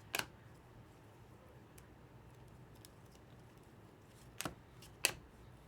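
Trading cards being handled as packs are opened and sorted: three short, sharp clicks, one just after the start and two about half a second apart near the end, over faint room hiss.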